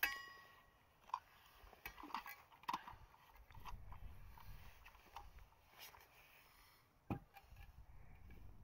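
A steel vacuum flask being closed and put down: a metallic clink that rings briefly at the start, small clicks and taps as the cap is screwed on, and a thump about seven seconds in as the flask is set down on a wooden table.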